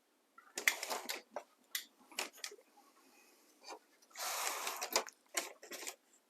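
Clicks, knocks and clatter of an HP LaserJet 2055 printer and its parts being handled during reassembly, with two longer stretches of clatter about half a second in and about four seconds in.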